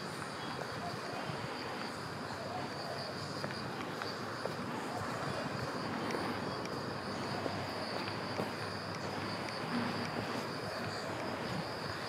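Outdoor ambience of insects chirring steadily at one high pitch over a constant wash of distant city traffic noise.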